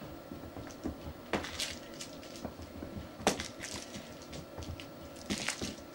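Scattered light knocks, clicks and scuffles of kittens scrambling and pouncing at a wand toy on a carpeted floor, with three sharper knocks spread through.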